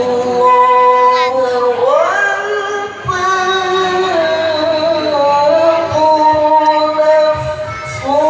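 A qori's voice reciting the Quran in the melodic tilawah style: long held notes that slide slowly up and down in pitch, with a rising glide about two seconds in.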